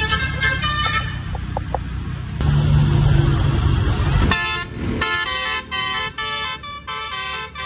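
Telolet basuri musical air horns on a tour bus playing a tune in quick stepped notes. Partway through, the tune gives way to a loud low rumble for about two seconds, then the horn notes resume.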